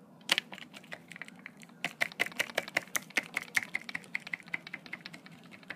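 Typing on a keyboard: quick, irregular light clicks, several a second.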